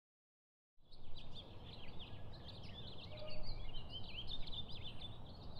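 Silent for the first second, then outdoor ambience: many small birds chirping busily over a steady low background rumble.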